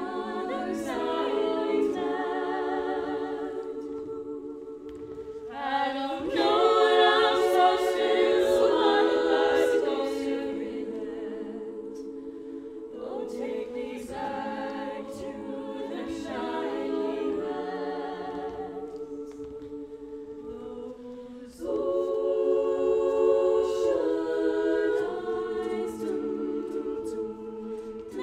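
All-female a cappella group singing into handheld microphones: layered, sustained vocal chords with no instruments. The sound swells louder about a fifth of the way in, eases off in the middle, and swells again past the two-thirds mark.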